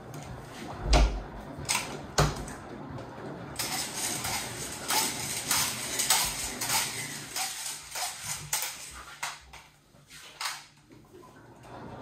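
Washing machine drum turning mid-wash with a load of silicone pop-it toys. Two sharp knocks come about one and two seconds in, followed by several seconds of rattling, swishing noise full of small clicks that eases off near the end, with one more knock.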